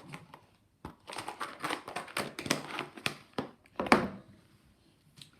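Slime being squished and handled: an irregular run of small sticky clicks and crackles, the loudest about four seconds in.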